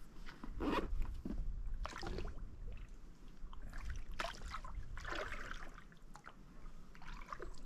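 Water trickling and sloshing along the hull of a Hobie foot-drive sea kayak under way, in irregular swishes about once a second, over the low piston rumble of the pedal drive.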